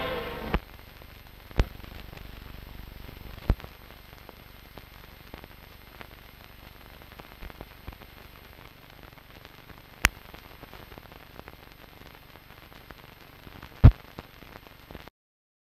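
Faint hiss and crackle of an old black-and-white TV recording's soundtrack, with a handful of sharp pops, the loudest near the end. The sound cuts off to dead silence just before the end.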